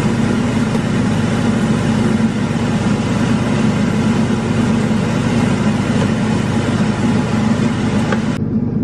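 Steady, loud machine drone from a running kitchen appliance motor at the cooktop, like an engine idling; its higher hiss drops away near the end.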